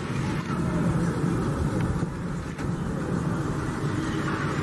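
Truck-mounted crane's engine running steadily while it lowers a load.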